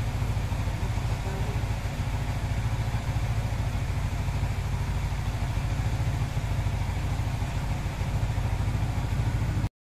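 Yamaha R15 V3's single-cylinder 155 cc engine, fitted with an S2 racing camshaft and a Juken 5 Plus ECU, idling steadily at about 1,600 rpm on a dyno. The sound cuts off abruptly near the end.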